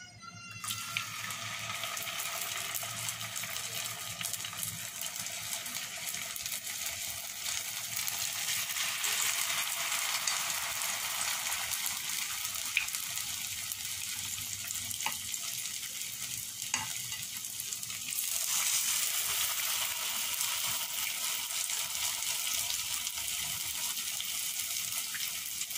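Batter-coated pointed gourd (potol) strips sizzling in hot oil in a frying pan. The sizzle starts about half a second in as the first strips go in and grows louder about two-thirds of the way through as more are added, with a few sharp clicks.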